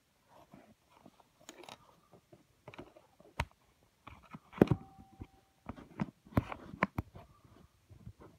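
Irregular clicks, taps and rustles right at the microphone as a handheld phone is moved about over a tabletop, with the sharpest knock about halfway through and a short steady squeak-like tone just after it.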